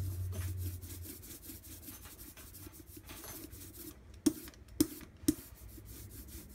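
Small rubber hand brayer rolling tacky blue printing ink back and forth over a plexiglass plate: a steady fine crackling rub as the roller spreads the ink thin. Three sharp clacks about half a second apart sound around the middle.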